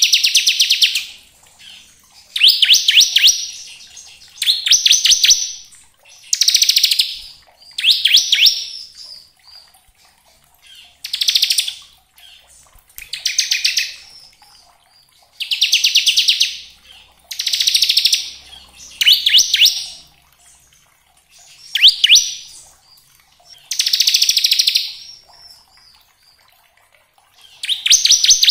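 Bar-winged prinia (ciblek) singing its 'ngebren' song: a string of loud, very fast, buzzy trills, each lasting under a second, repeated about a dozen times with short pauses between.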